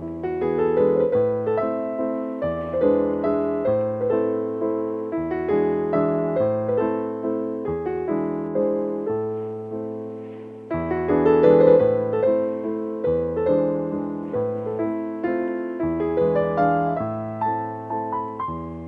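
Solo piano music: a steady flow of struck notes over held bass notes, with a new phrase starting louder about eleven seconds in.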